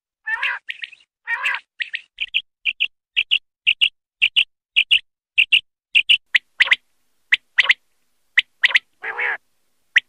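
Common quail calling: a couple of harsh, raspy notes, then a long, even run of short, sharp, high notes, mostly in pairs at about two a second, with another raspy note near the end.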